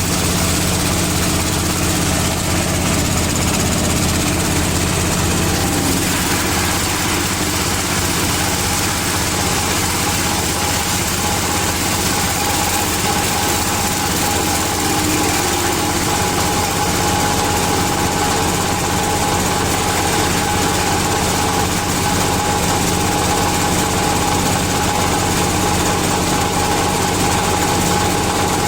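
A palm-frond chopper driven by a 16 hp diesel engine running steadily on test, an even drone that does not change.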